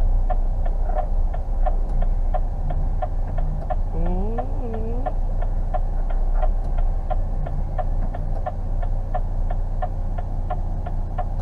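Truck cab turn-signal indicator ticking steadily, about three clicks a second, over the low hum of the idling diesel engine. About four seconds in, a brief tone slides up and down twice.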